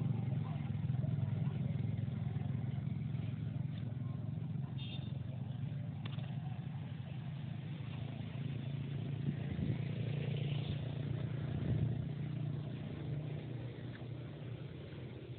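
An engine running steadily nearby, a continuous low hum with no change in speed.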